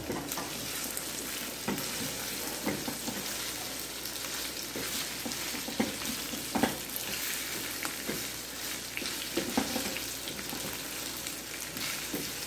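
Chicken strips with tomato and green pepper sizzling steadily in a frying pan while a wooden spoon stirs them, with occasional knocks of the spoon against the pan.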